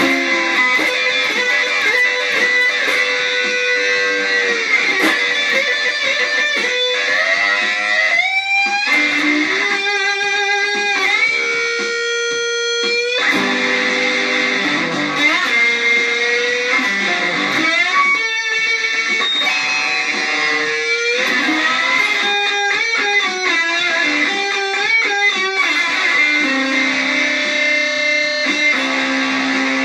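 Instrumental music led by an electric guitar playing long held notes that slide and waver in pitch over sustained backing tones.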